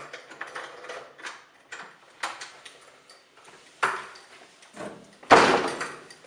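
A series of separate clicks and knocks at a wooden apartment front door, like a key working the lock. A much louder thud comes about five seconds in.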